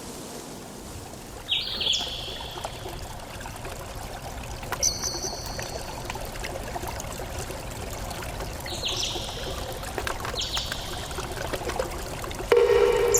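Water trickling steadily, with four short high bird calls that step down in pitch spread through it. A louder, lower pitched tone starts near the end.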